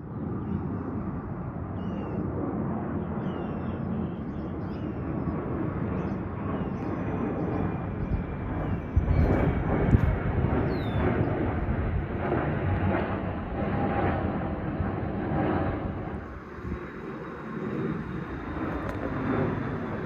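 Firefighting air tanker flying over, its engine noise a continuous broad rumble that swells to its loudest about halfway through and eases off near the end. Faint bird chirps over it.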